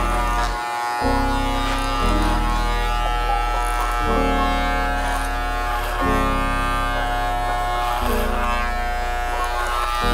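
Background music, a mellow jazz-type beat whose chords change about every two seconds, over the steady buzz of Wahl electric hair clippers cutting hair.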